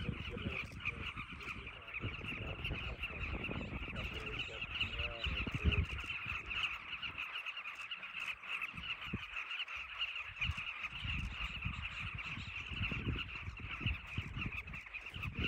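Large breeding colony of southern carmine bee-eaters calling together: a dense, continuous chatter of many overlapping calls, over a low, irregular rumble.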